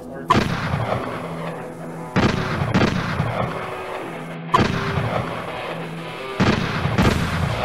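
Gunshot sound effects: about six loud shots, each followed by a long echoing tail, over a steady held music tone.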